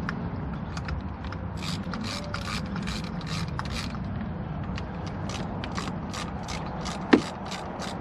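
Small hand ratchet clicking as the thermostat housing bolts on a BMW N47 diesel engine are run in just up to touch, not yet torqued. The clicks start about a second and a half in and go on at a steady pace of about four a second, with a single louder knock about seven seconds in.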